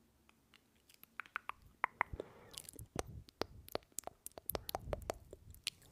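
Close-miked ASMR clicking sounds into a condenser microphone: quick, irregular crisp clicks and crackles, sparse about a second in and growing denser.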